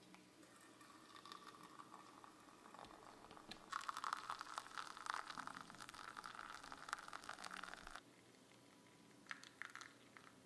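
Hot water poured from a kettle into a glass teapot over loose tea leaves: a faint trickle that becomes a louder splashing pour about four seconds in, then cuts off suddenly, followed by a few light clicks.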